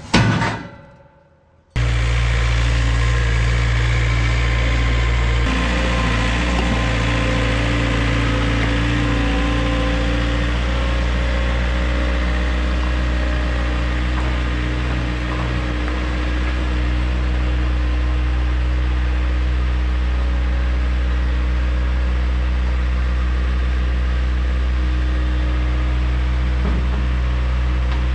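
Heavy machine engine running at a steady speed, cutting in about two seconds in after a short lull, its note shifting slightly a few seconds later.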